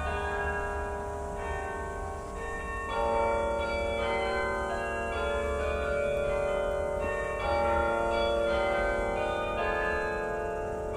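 The carillon of Wellington's National War Memorial playing a slow melody: tuned bronze bells struck one note or chord at a time, a new strike every second or so, each ringing on under the next.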